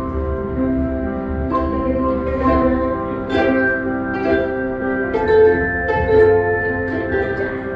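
Background music: a gentle melody on plucked-string instruments, one note after another.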